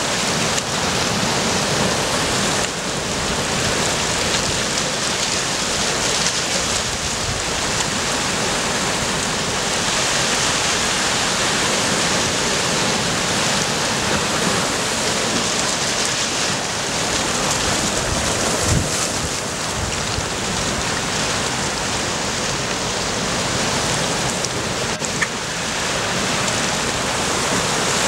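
Sea surf washing steadily over shoreline rocks, a continuous rush of water, with wind gusting on the microphone.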